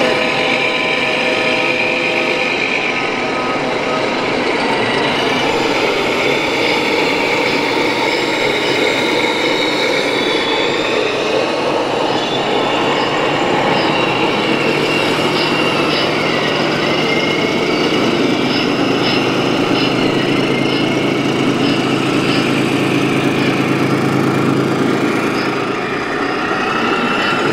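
Steady din of running radio-controlled model trucks and their sound-module engine noise. A low, even engine hum comes in about halfway.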